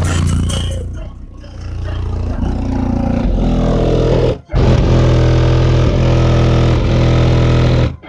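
Bass-heavy music played very loud through a car audio system of six Crescendo Contralto 12-inch subwoofers, with long deep bass notes held steady. There is a short break about four and a half seconds in.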